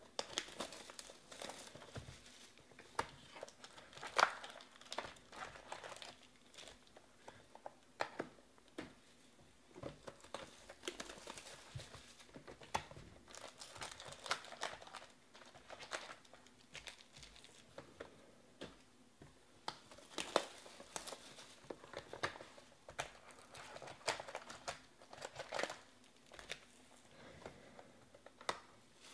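Plastic wrapping and foil card packs crinkling and tearing as a sealed box of Panini Chronicles football cards is unwrapped and opened by hand. The sound comes in irregular bursts of crackling with small taps and clicks.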